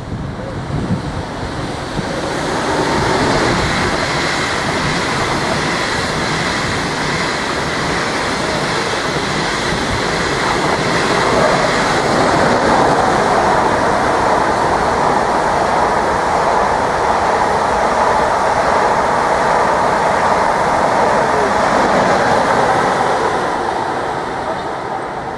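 Deutsche Bahn ICE high-speed train passing, a steady rush of wheels on rails that builds over the first few seconds, holds while the long train goes by, and fades near the end.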